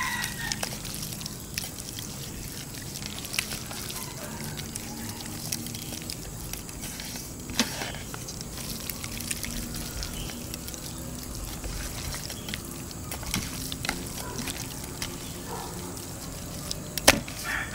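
Raw pork slices being kneaded and squeezed by hand with dry seasoning: soft wet squelches and faint clicks over a steady low hum, with a sharper click about halfway through and another near the end.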